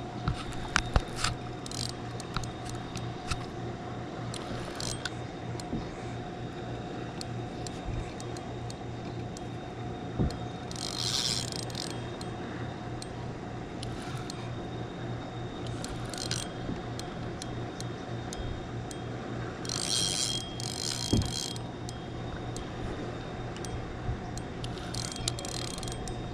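Spinning reel being cranked to bring in a hooked fish: the reel's gears turn under the handle with scattered clicks and knocks, over a steady low hum. A few short bursts of hiss come through about halfway and again near the end.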